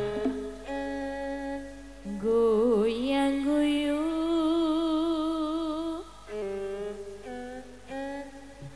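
Javanese campursari langgam music: a slow melody of long held notes, some with a wavering vibrato, giving way to shorter notes in the last few seconds.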